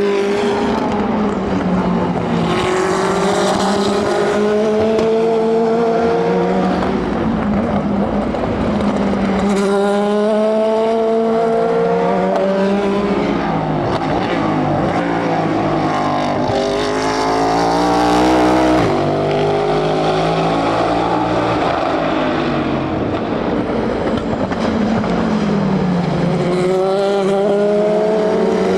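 Endurance race cars going by one after another at speed, engine notes climbing in pitch as they accelerate through the gears. Several engines overlap in the middle, and one goes by loudest about 18 seconds in, its pitch dropping as it passes.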